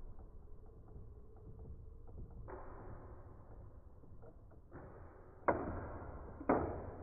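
Two Beyblade spinning tops, Hound Dog Ignition and Wolborg Hybrid, spinning in a plastic stadium, with small ticks as they graze. Then four sharp clashes from about two and a half seconds in, each fading quickly, the last two the loudest.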